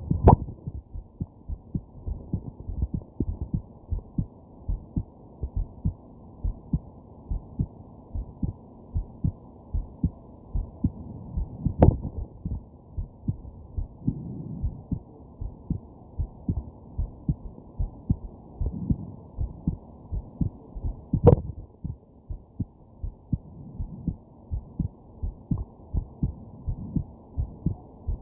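Human heartbeat heard through a stethoscope pressed to the chest: a steady run of muffled lub-dub thumps. Sharp jolts, which are hiccups, break in just after the start, about 12 seconds in and about 21 seconds in.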